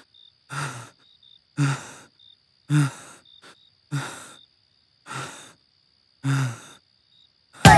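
A man panting hard after running: six heavy, voiced breaths out, about one a second apart.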